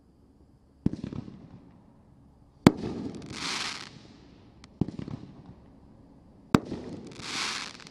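A 500-gram consumer firework cake firing two shots. Each shot is a sharp bang, then a louder bang about two seconds later, then about a second of crackling hiss.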